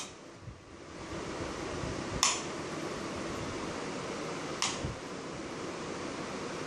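Steady hiss of room noise, broken by two sharp clicks about two seconds apart.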